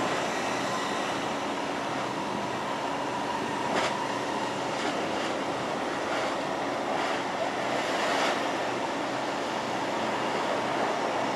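Drilling rig working a steel casing into the riverbed: steady machinery noise with a faint whine, mixed with the hiss of a water jet spraying onto the river. Several short knocks stand out, the loudest about four seconds in and another near eight seconds.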